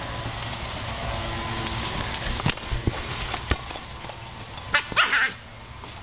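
Small dog barking in a quick burst of several barks near the end, the frustrated barking of a dog at a ball too big to fit in its mouth. A few dull thumps come a second or two earlier.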